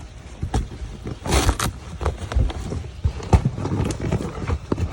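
Packaging being handled and pulled open during an unboxing: irregular knocks and thumps mixed with short rustling and tearing sounds, the longest rustle about a second and a half in.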